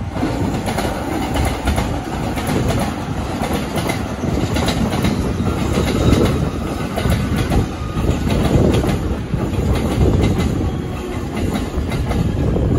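A train running on the rails: a loud, steady rumble with many sharp clacks of wheels passing over the rail joints.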